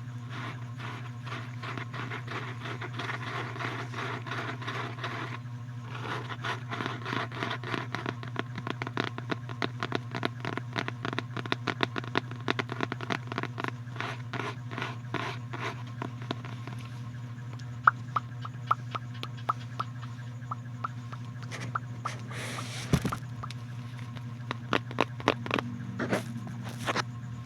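Close-miked ASMR scratching: rapid, dense scratching strokes for the first half or so, giving way to slower, sparse sharp taps and clicks, with a short rustling burst a little before the end, over a steady low hum.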